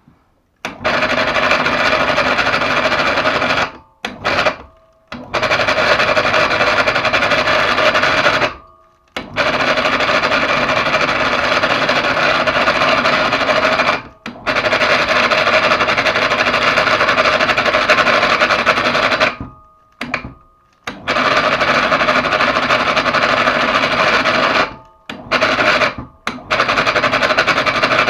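Electric mini hoist (PA 250/500) motor switched on and off repeatedly, running in spells of a few seconds with a few short blips between them. It carries a persistent unwanted noise, which the owner thinks most likely comes from the brake pads rubbing.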